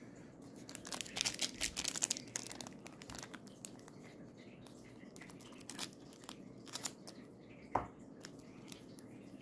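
Foil wrapper of a Pokémon booster pack crinkling as it is handled: a dense run of crackles in the first few seconds, then scattered small crackles.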